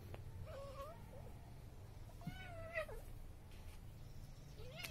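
Tabby cat meowing three times: a short call near the start, a longer, louder one about halfway, and a brief rising one at the end.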